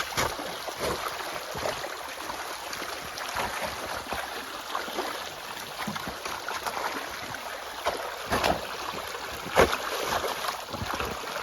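Rainwater and snowmelt running down a ditch channel, with a shovel scraping and knocking against chunks of ice several times, loudest about eight and a half and nine and a half seconds in. The ice is damming the channel and being dug out.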